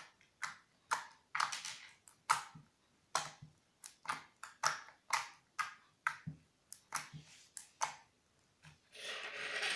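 Clear homemade glue-and-borax slime pressed and poked with the fingers, giving irregular sharp sticky clicks and pops about twice a second, then a longer wet crackling squelch near the end.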